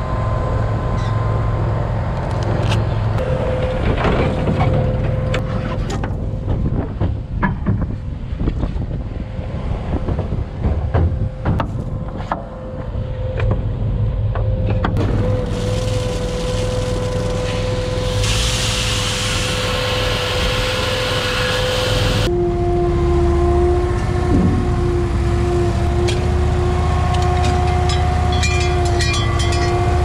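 Farm machinery engine running steadily with a whining tone, over scattered clicks and rattles as the rye is unloaded. A burst of hiss comes about two-thirds of the way through, and after it the drone settles on a different, lower whine.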